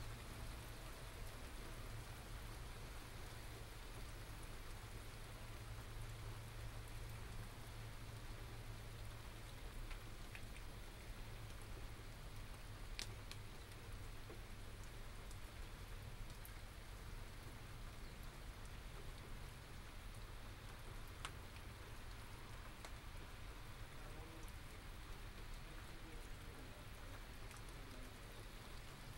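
Steady rain from a small thunderstorm, an even hiss with single drops ticking close by, a couple of them sharper about halfway through. A steady low rumble runs underneath.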